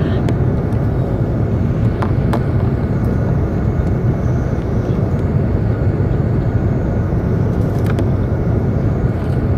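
Steady cabin noise inside an Airbus A380 in flight: a deep drone of airflow and its Rolls-Royce Trent 900 engines. A few faint clicks sound over it, a couple about two seconds in and one near the end.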